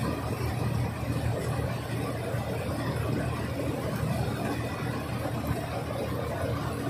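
Combine harvester's diesel engine running steadily with a low hum.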